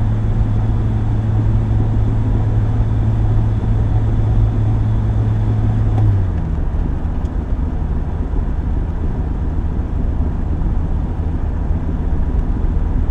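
Sports car's engine and road noise heard from inside the cabin: a steady low drone that drops in pitch and eases slightly about six seconds in.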